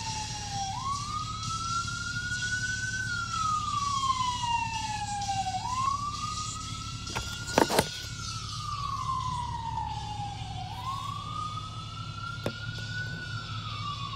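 Ambulance siren on a slow wail: the pitch climbs quickly, then falls slowly, repeating about every five seconds. It is heard from inside a car's cabin with a steady low hum underneath. A couple of sharp knocks come about halfway through.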